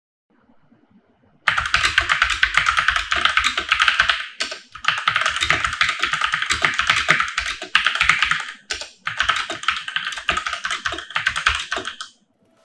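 Fast typing on a Tecware Spectre Pro mechanical keyboard: a dense clatter of key clicks in three runs, broken by short pauses about four and a half and nine seconds in.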